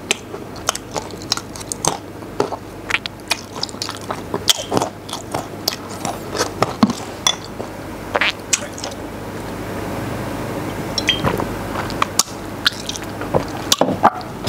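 Close-miked chewing of crunchy vinegar-soaked peanuts, with many sharp, irregular crunches.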